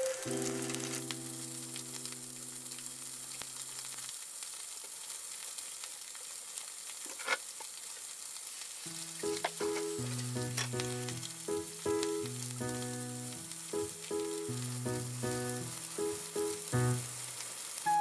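Chicken wing middles frying in a frying pan, with shiitake in a square pan beside it: a steady sizzle. Light background music plays over it, dropping out for a few seconds in the middle.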